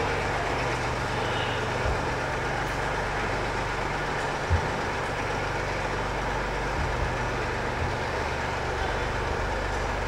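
Small vintage tractor engine running steadily as it pulls a harrow over soft sand, with one brief knock about halfway through.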